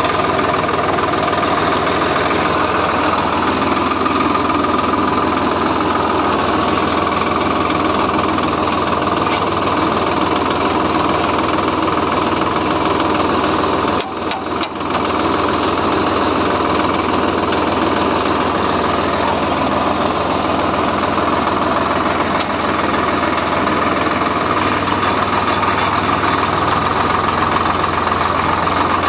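Swaraj 742 XT tractor's three-cylinder diesel engine running steadily as the tractor drives along, with a brief dip in level about halfway through.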